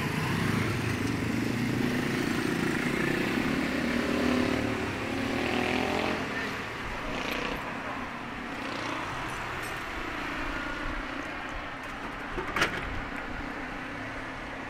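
A motor vehicle passing on the street: a low rumble that fades after about six seconds into quieter background noise, with one sharp click near the end.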